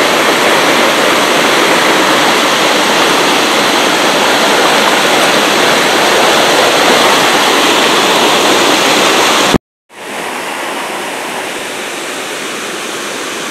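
Rushing white water of a jungle waterfall tumbling over rocks close by, a loud, steady rush. About ten seconds in it cuts out for a moment and resumes softer, as the steady fall of the waterfall into its pool.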